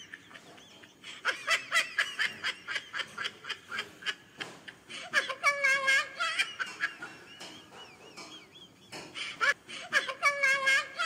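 Laughter: a quick run of repeated ha-ha sounds, with higher, longer laughs about five seconds in and again near the end.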